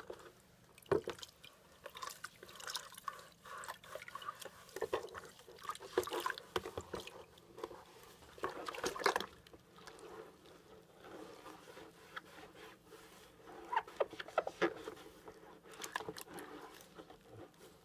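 A plastic part being scrubbed with a sponge in a bucket of soapy water: irregular sloshing and splashing, with scattered scrapes and knocks of the part against the bucket.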